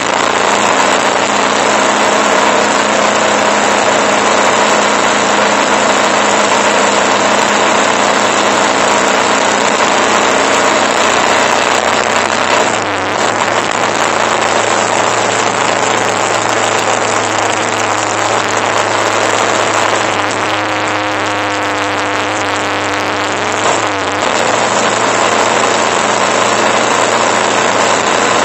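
Motorcycle engine running while riding, under heavy wind and road noise. The engine note dips briefly about halfway through, and runs quieter for a few seconds later on before picking up again.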